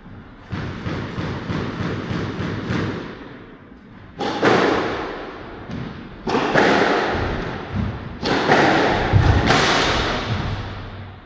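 Squash rally: the ball is struck by rackets and thuds against the court walls, first as a quick run of strikes and then as several louder thuds, each echoing in the hall.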